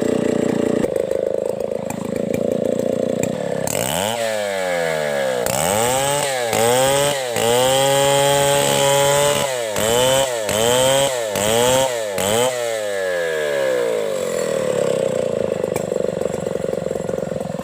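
Stihl 070 two-stroke chainsaw idling, then revved up again and again, its pitch climbing and dropping with each squeeze of the throttle and held at full revs for about two seconds in the middle, before settling back to a lower steady run near the end.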